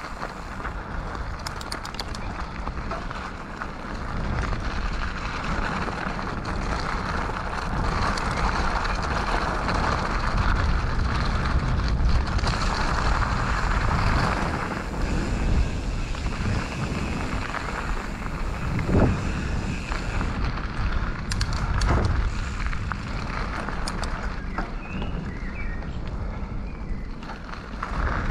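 Mountain bike riding on a dirt trail, heard from the bike-mounted or rider-worn action camera: steady tyre rumble and wind on the microphone, with a few sharp knocks from bumps.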